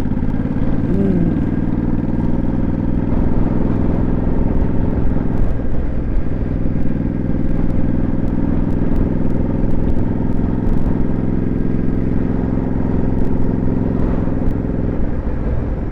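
Motorcycle engine running steadily while being ridden, picked up by the rider's lavalier mic, with wind and road noise over it. A brief rising-then-falling tone sounds about a second in.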